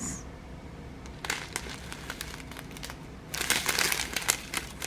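Plastic packaging crinkling as it is handled: a few light clicks at first, then a steady run of crinkling from about three seconds in.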